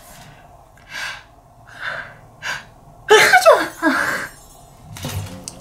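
A woman's sneeze: a few quick catching breaths build up over the first couple of seconds, then a loud voiced sneeze about three seconds in, followed straight away by a shorter second burst.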